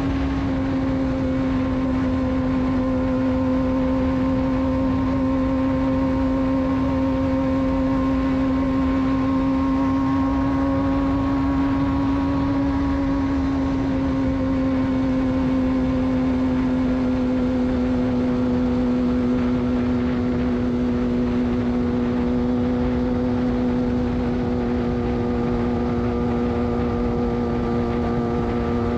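Suzuki GSX-R600 inline-four engine through a de-catted Yoshimura exhaust, held at a steady high rpm while riding, its pitch drifting slightly lower, over a steady rushing noise.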